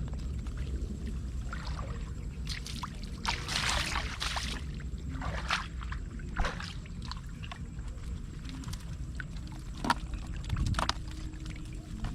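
Water splashing and sloshing in irregular bursts over a steady low rumble, with a couple of sharp knocks.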